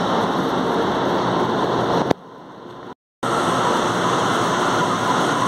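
São Paulo Metro Line 1 train running out of the station: a loud, steady rushing noise that breaks off with a click about two seconds in. After a brief gap, a similar steady rushing noise comes back.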